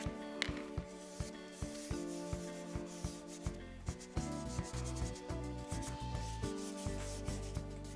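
Dry soft pastel rubbed on paper in quick short strokes, a scratchy shading sound, over steady background music.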